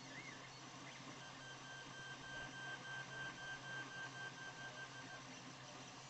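Creality Ender 3 3D printer's stepper motors singing while it prints, a faint string of pitched whistles and short chirps that sound like R2-D2. A steady high tone holds for about four seconds from about a second in.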